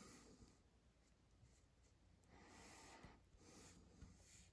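Near silence: faint room tone, with two soft rustles about halfway through and near the end.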